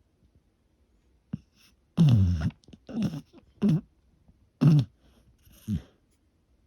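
Bull terrier snoring in her sleep: five short, rough snores about a second apart, each falling in pitch, the first the loudest.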